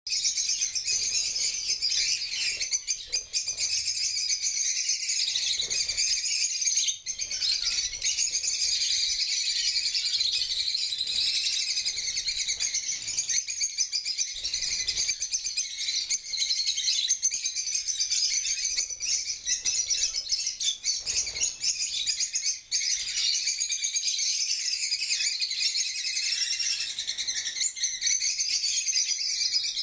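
Parrots chirping and chattering without a break, a dense high twittering of overlapping calls.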